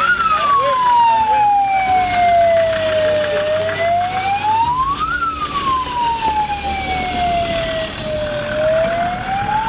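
A wailing siren: one tone sweeping slowly up and down, with long falls of about three seconds and quicker rises, peaking twice.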